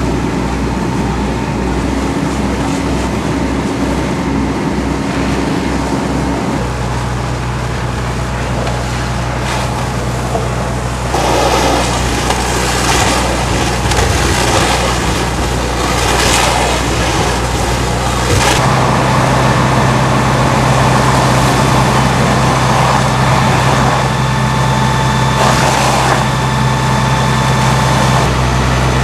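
Fire truck engines running steadily at the fireground, their pitch stepping up a couple of times. Bursts of rushing noise come through in the middle.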